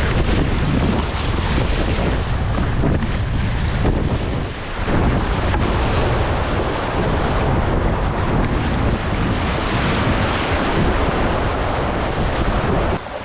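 Rushing whitewater of a shallow river rapid, with heavy wind buffeting on the microphone. It drops off suddenly near the end.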